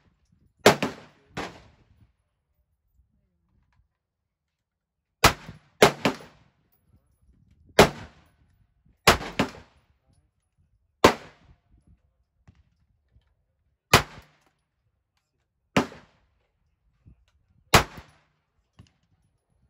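A string of about ten single gunshots, fired one at a time at uneven intervals of one to three seconds, each a sharp crack with a short ringing tail.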